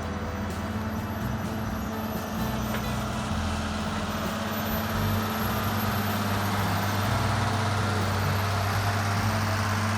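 Heavy truck engine running steadily, growing somewhat louder partway through.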